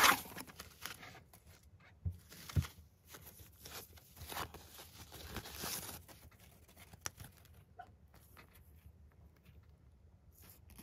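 Packing tissue paper and a plastic sleeve rustling and crinkling as sticker sheets are lifted out of a parcel and handled, loudest at the start and again about four to six seconds in, with two soft knocks about two seconds in.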